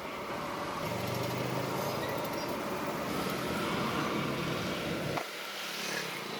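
Street traffic noise with a motor vehicle engine running close by; its low hum drops away abruptly about five seconds in.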